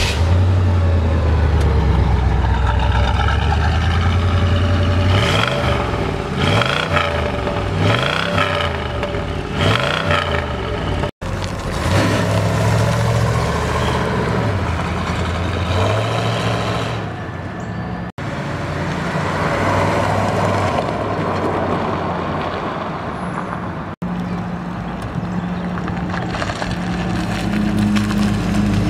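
1979 Chevrolet Corvette's 350 cubic-inch L82 small-block V8 idling, then revved four times, each rev rising and falling. It then runs under way and idles again, with three brief dropouts where the sound cuts between shots.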